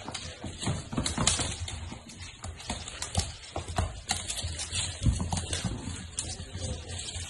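Miniature dachshund puppies' claws clicking and scrabbling irregularly on a hard floor as they wrestle, with a heavier thump about five seconds in.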